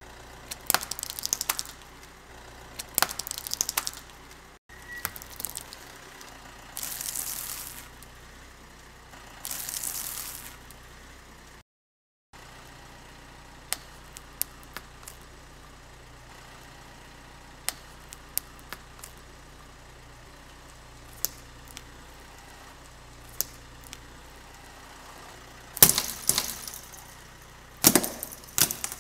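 Car tyre rolling over small plastic objects and crushing them: sharp cracks and snaps of breaking plastic, a few short crunching stretches, then scattered single snaps, with the loudest bursts of cracking near the end.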